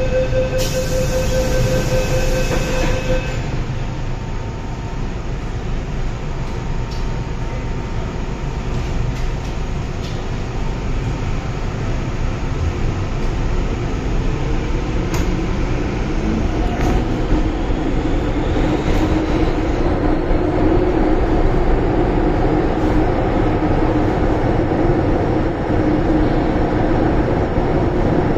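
Metro-Cammell M-Train subway car: warning beeps sound for about three seconds at the start as the doors close, over the steady rumble of the standing train. About halfway through, the train pulls away with a rising traction-motor whine, and the running rumble grows louder.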